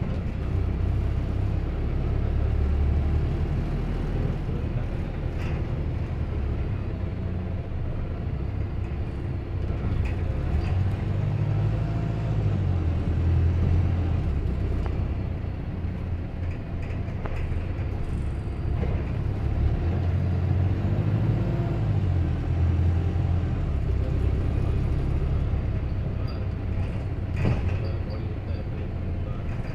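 Arriva London SLS24 single-deck bus on the move, heard from inside the passenger saloon: a steady low engine and road rumble that swells and eases a couple of times, with a few brief knocks and rattles, the clearest near the end.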